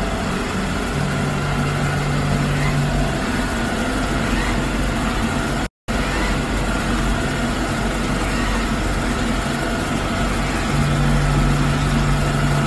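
Samsung robot vacuum running with a steady whirring hum. A deeper hum comes in twice for about two seconds each time, and the sound breaks off for an instant about halfway through.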